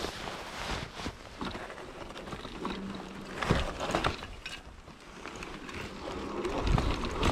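Off-road wheelchair on 20-inch fat-bike tyres rolling over a rough forest dirt trail: tyre rumble and rattling of the frame and front drive unit, with several sharp knocks as it goes over bumps. A faint steady hum, likely from the electric drive, comes in briefly about three seconds in.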